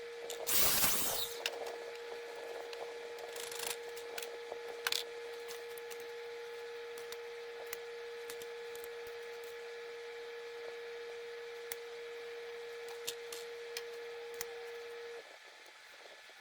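A power tool's motor running with a steady whine, with a short burst of rushing noise about half a second in and scattered clicks and knocks; the whine cuts off suddenly near the end.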